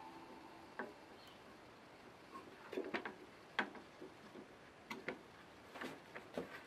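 Scattered light clicks and taps, about eight at irregular intervals, from hands handling the opened vibration massage plate's plastic housing and metal motor frame.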